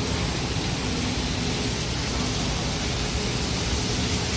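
Steady, even rushing noise that holds at one level throughout, with a faint low hum under it.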